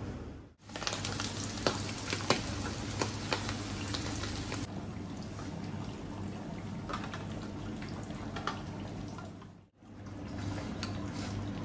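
Seafood sauce sizzling and bubbling in a hot frying pan as liquid is worked in, with a few sharp metal clinks of a ladle and spoon against the pan over a steady low hum. The sound drops out briefly twice, near the start and near the end.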